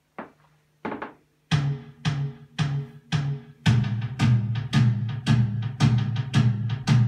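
Synthesizer keyboard's built-in drum pattern playing, with a bass line under it. It starts with a few sparse hits, settles into a steady beat about a second and a half in, and grows fuller and heavier from about halfway through.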